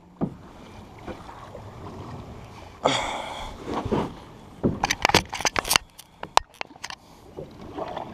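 Double-bladed kayak paddle stroking through the water: a splashing surge about three seconds in, then a run of sharp ticks and drips as the blade comes out, over a steady low rush of water against the hull.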